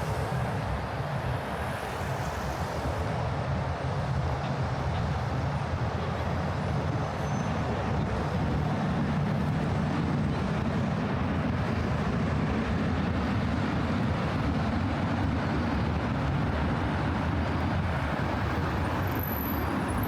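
Street traffic ambience: a steady low rumble of passing vehicles.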